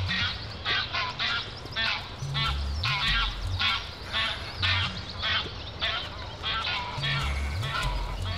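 A flock of geese honking in a rapid, continuous series of calls, two or three a second.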